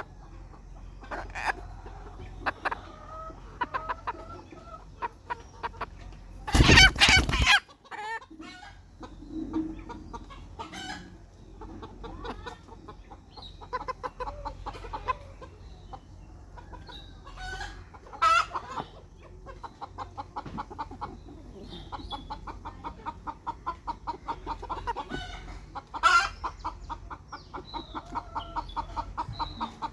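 Domestic chickens clucking, with a loud call about seven seconds in and a long run of rapid, evenly repeated clucks in the last third.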